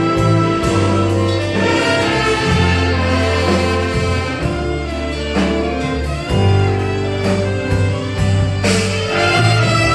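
An orchestra playing an instrumental passage: sustained chords over held bass notes that change every second or two.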